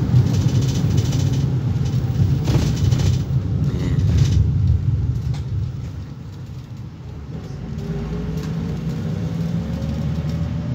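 Steady low engine and road rumble heard from inside a moving bus. It eases off a little past halfway, then a faint rising whine comes in near the end as the rumble builds again.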